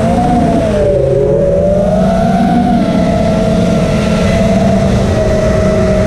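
A 5-inch FPV quadcopter's T-Motor F40 Pro II 2600kv brushless motors whining in flight, heard from the onboard camera over a heavy rush of prop wash and wind. The pitch dips about a second in, climbs back, then holds steady.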